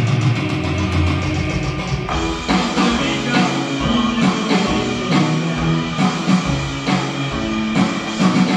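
Live rock band playing: electric guitar, drum kit and upright piano together, with regular drum hits keeping the beat.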